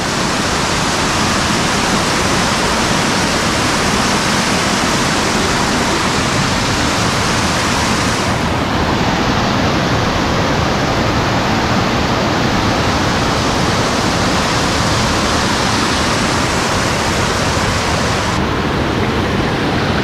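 A waterfall's falling water rushing close by in a loud, steady, even hiss.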